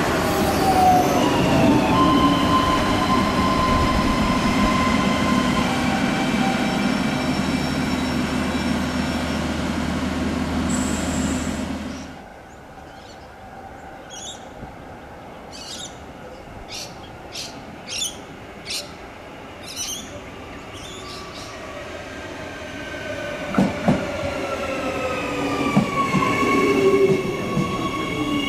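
A diesel railcar passes close by, its engine droning steadily under high wheel squeal, until the sound cuts off abruptly about twelve seconds in. A quieter stretch with a few short high chirps follows. Then an electric multiple-unit train arrives at the platform, its whine and wheel squeal falling in pitch as it slows, with a couple of thumps.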